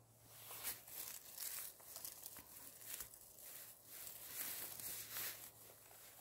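Soft, irregular rustling and crinkling of forest-floor vegetation as wild mushrooms are picked by hand.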